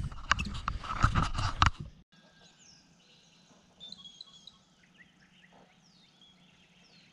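Lake water splashing and sloshing at the side of a bass boat for about two seconds, then it cuts off. After that, birds chirp and call a few times over a faint steady hum.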